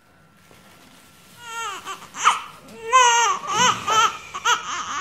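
Newborn baby crying: quiet at first, then from about a second and a half in a string of short, high cries that rise and fall in pitch.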